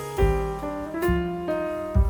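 Background piano music: a slow run of struck notes, each fading before the next, with low bass notes under them.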